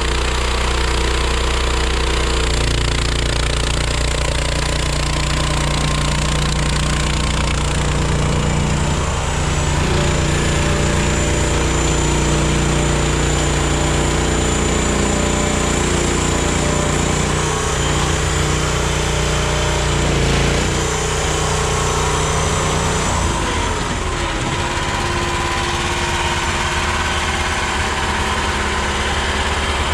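Mini skid steer engine running steadily. Its pitch shifts several times, with a clear drop about 23 seconds in.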